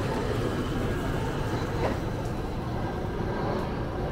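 Airliner engine noise: a steady low rumble with a faint high whine above it, as a landing aircraft passes.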